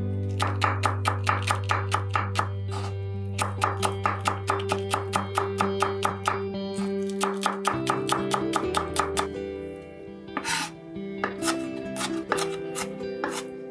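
Kitchen knife rapidly slicing a large green onion on a wooden cutting board: quick, regular knocks of the blade on the board, about four to five a second, in runs with short pauses. Background music plays throughout.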